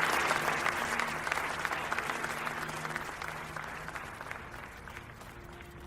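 Applause from a small crowd, clapping that dies away over several seconds, with a faint low steady tone underneath.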